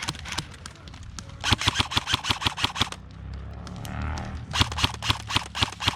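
Airsoft guns firing full-auto: two bursts of rapid, evenly spaced sharp cracks, each about a second and a half long, the first starting about a second and a half in. Scattered single shots come before the first burst.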